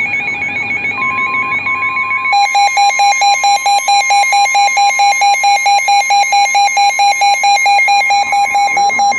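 Weather-alert alarm tones. A warbling siren-like alarm is joined about a second in by the steady 1050 Hz NOAA Weather Radio warning tone. From about two seconds in, a loud pulsing beep alarm at about four beats a second sounds over the steady tone.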